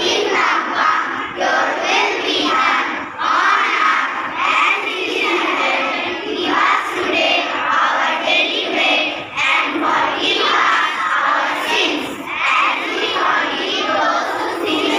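A group of schoolchildren voicing a prayer together in chorus, many young voices at once without a break.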